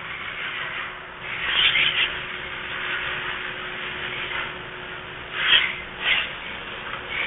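Rubbing and scraping handling noises from gloved hands working at the oil-pan drain plug under the pickup, in a few short bursts over a faint steady hum.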